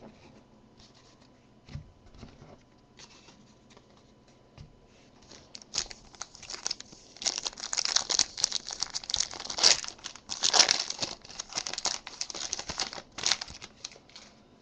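Foil wrapper of a Topps Strata football card pack being torn open and crinkled by hand. About six seconds in, the tearing and crinkling starts and runs for several seconds, loudest in the middle. Before that, only faint light clicks of cards being handled.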